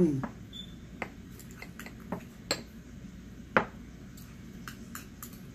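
Plastic fork clicking and scraping against a glass bowl: a handful of sharp clicks over the first four seconds, the loudest about three and a half seconds in, with fainter taps later. It opens with a short sound sliding down in pitch.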